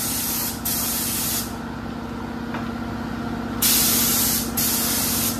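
Air spray gun spraying clear coat, a strong hiss in passes that breaks off briefly as the trigger is let go. The hiss stops for about two seconds in the middle, then comes back louder.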